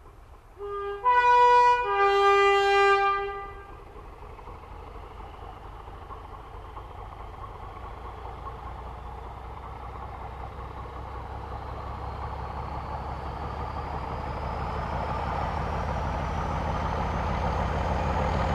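Dubbed recording of a British diesel locomotive: its two-tone horn sounds three notes, low, high, then low, in the first few seconds. After that the locomotive's running noise grows steadily louder, with a faint whine slowly rising in pitch.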